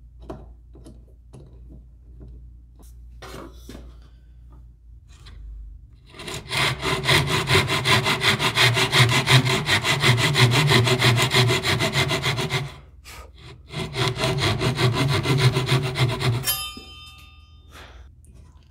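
Fine-toothed hand saw cutting a lip slot into a figured-maple lure body, its blade guided along a wooden jig: rapid back-and-forth strokes for about six seconds, a short pause, then about three seconds more. The strokes end with a brief metallic ring from the blade.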